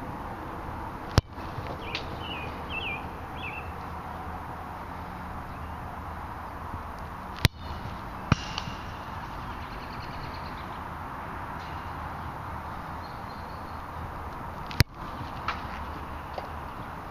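A boot striking a soccer ball hard three times, each kick a single sharp thud about six to seven seconds apart. A fainter knock follows shortly after the second and third kicks.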